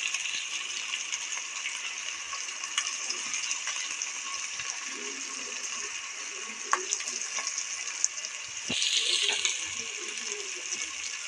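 Chopped vegetables frying in oil in an aluminium pot: a steady sizzle, with a few small clicks as ginger-coriander paste is spooned in, and a brief louder hiss about nine seconds in.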